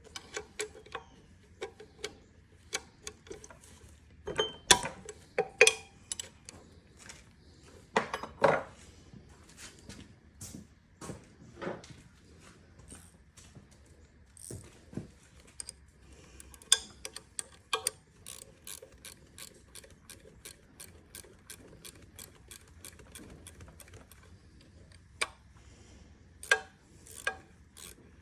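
Socket ratchet clicking in quick runs, turning the connecting-rod cap bolts of a Kohler CV725 V-twin, with a few louder metal clinks of tools and parts.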